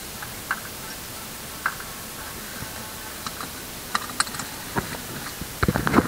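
Steady hiss with scattered light clicks and taps, a few seconds apart, ending in a quick cluster of louder knocks.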